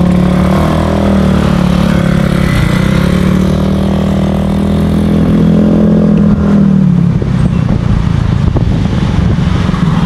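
Small motor scooter engine pulling away and running at a steady throttle. The pitch drops about seven seconds in as it eases off.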